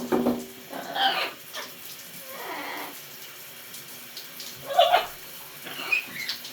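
Water running from a tap or shower, with a pet parrot giving about five short calls over it.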